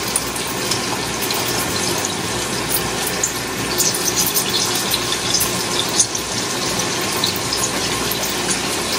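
Fish pieces frying in oil on a gas stove: a steady sizzle with faint scattered crackles.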